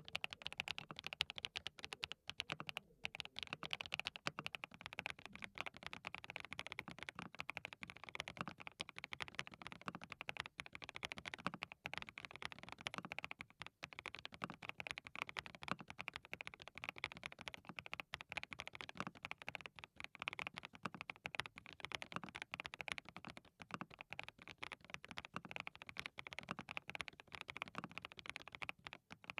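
Steady typing on a hand-lubricated DT35 87-key custom mechanical keyboard with linear switches: fast, continuous keystrokes, with SWK Dragon Ghost switches for the first few seconds and SWK Vertex V1 switches after that.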